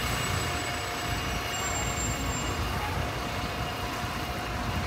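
City bus engine running amid street traffic: a steady rumble.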